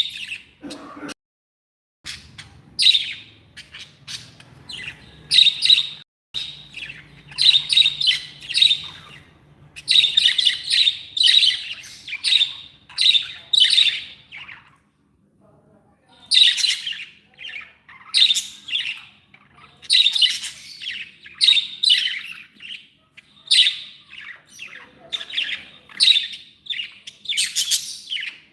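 Pet budgerigars chattering: a busy run of short, high chirps and warbles with a pause of about a second and a half just past the middle.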